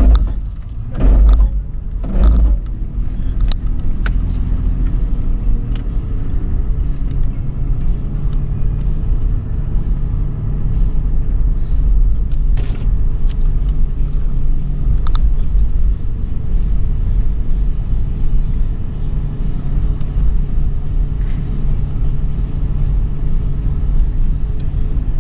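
2013 Toyota 4Runner SR5's 4.0-litre V6 running under load as the truck drives over sand dunes: a steady low rumble of engine and tyres, with a few heavy thumps in the first couple of seconds and light knocks after.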